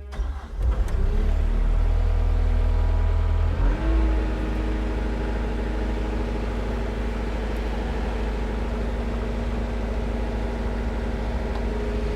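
New Holland L318 skid steer's diesel engine starting from cold: it catches within the first second, runs faster for about three seconds, then settles to a steady idle to warm up.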